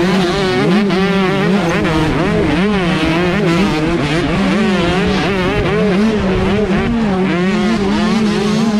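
125cc racing dirt bike engines revving hard, the pitch rising and falling over and over as the throttle is worked.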